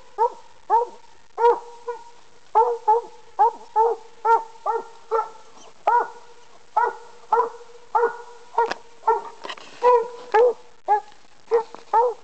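Black-and-tan coonhound treeing: a steady run of short, loud chop barks, about two a second, the hound's signal that it has game up the tree.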